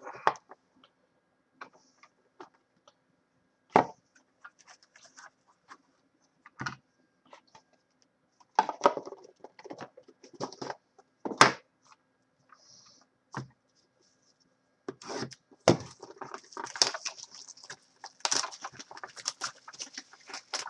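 Hands opening and handling trading card boxes: scattered clicks and taps of cardboard and a hard plastic card case set down on the desk, with packaging rustling that gets busier in the last few seconds.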